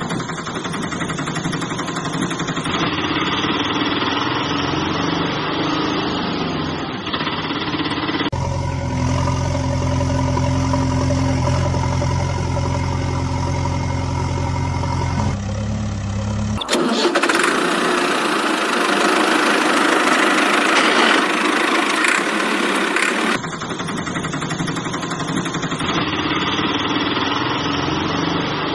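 Engine sound effects laid over the pictures of the toy vehicles. A small engine runs, then changes abruptly to a deep, steady idle for several seconds. Next comes a louder hissing stretch, and then the small engine sound returns.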